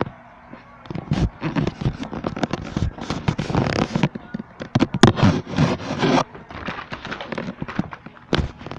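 Irregular rustling noise close to the microphone, loud for several seconds and dying down about six seconds in.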